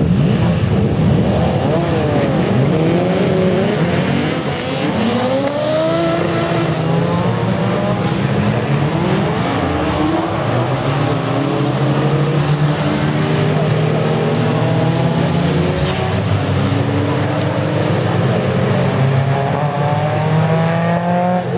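A field of sports saloon race cars running and revving together, many engine notes rising and falling over each other.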